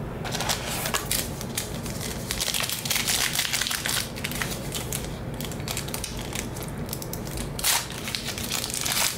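Foil wrapper of a 2020 Panini Diamond Kings baseball-card pack crinkling and crackling as it is handled and opened, with a louder crackle about three-quarters of the way through.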